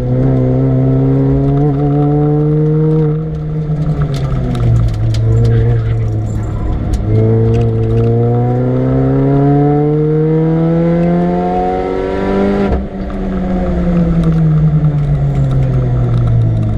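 Supercharged Mini Cooper R53's 1.6-litre four-cylinder engine driven hard on track. The revs climb, ease briefly about three seconds in, then climb steadily for several seconds to a sudden cut about twelve seconds in, after which they fall away steadily.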